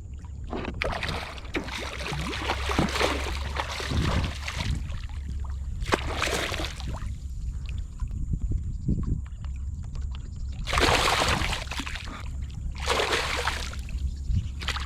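Water sloshing and splashing beside a kayak in four separate bursts, each one to four seconds long, as a hooked redfish thrashes and is brought to the boat. A steady low rumble lies underneath.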